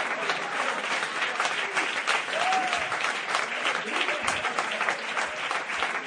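A crowd of people clapping in dense, steady applause, many hands overlapping.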